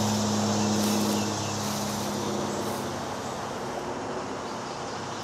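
Distant road traffic: a low, steady engine drone that fades away over the first two or three seconds, over a continuous wash of traffic noise.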